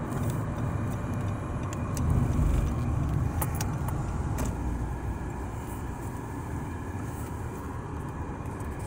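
Motor vehicle rumble with steady engine and road noise, swelling louder about two seconds in, then settling; a few light clicks in the middle.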